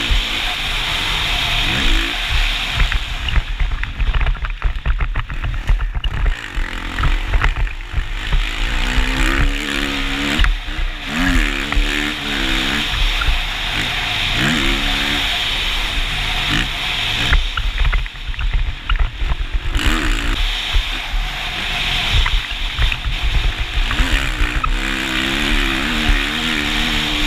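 2019 Kawasaki KX450's single-cylinder four-stroke engine revving up and down repeatedly as the bike accelerates and backs off on a dirt track, with heavy wind noise on the microphone.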